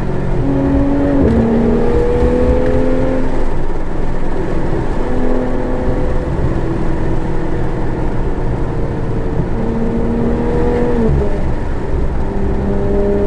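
Porsche 991.1 GT3's 3.8-litre flat-six with an aftermarket GMG exhaust under way, heard from inside the cabin. The engine note climbs gently and drops in pitch abruptly about a second in and again near eleven seconds, as the PDK gearbox shifts.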